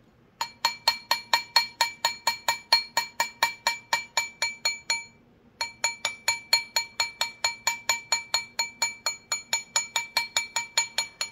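Texturing hammer striking a sterling silver ring on a steel ring mandrel in fast, even taps, about five a second, each tap ringing with a metallic clink. The tapping pauses briefly about five seconds in, then carries on.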